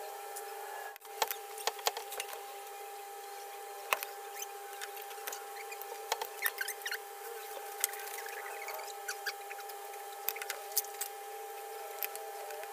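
Small clicks, taps and scratches of hands working with wires, a soldering iron and a utility knife on a small amplifier board, scattered irregularly over a steady faint hum.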